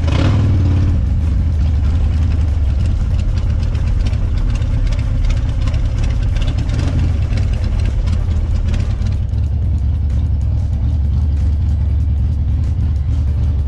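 Motorcycle engine running steadily with a loud, deep, low rumble.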